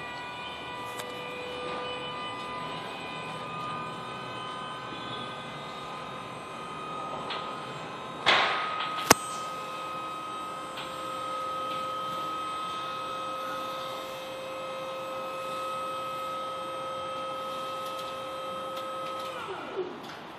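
Genie GS-3246 electric scissor lift raising its platform: the hydraulic pump motor runs with a steady whine. About eight seconds in there is a brief noisy burst and a sharp click, after which the whine settles at a slightly different pitch. Near the end the whine falls in pitch and stops as the lift halts.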